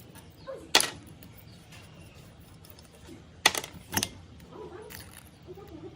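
Three sharp clicks or knocks of hard parts or tools being handled during the strip-down of a rusty Bosch circular saw: one about a second in, then two close together past the middle.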